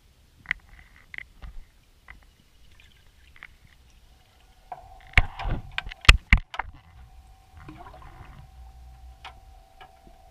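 Sounds heard underwater through a submerged camera: scattered light clicks, then a quick cluster of loud knocks about five to six and a half seconds in. A steady mid-pitched hum joins about five seconds in and carries on.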